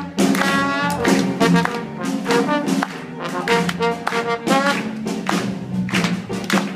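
Trombone playing short, repeated bluesy phrases over a live band's rhythm.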